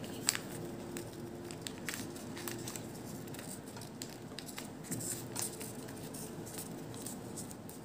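Origami paper being folded and creased by hand: scattered faint crackles and rustles of the paper, over a faint steady hum.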